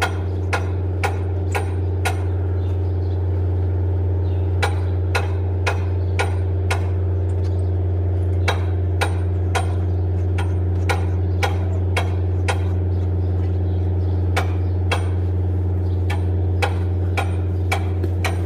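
Mercedes-Benz Actros 4040 truck's diesel engine running with a steady low hum, overlaid by sharp taps about two a second that come in runs with short pauses between them.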